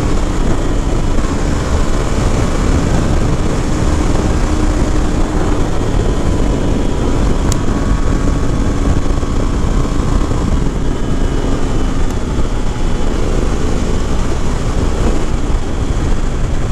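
Hero Xpulse 200 motorcycle riding at steady speed: wind rushing over the microphone, with the single-cylinder engine running steadily underneath.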